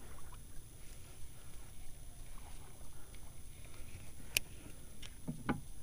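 Low, steady outdoor noise of wind and water around a small boat, with a single sharp click about four seconds in and a short vocal sound near the end.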